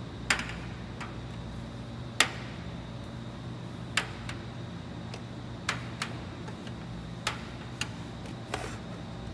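Kitchen clatter: about nine sharp, irregular clinks and clicks over a steady low hum.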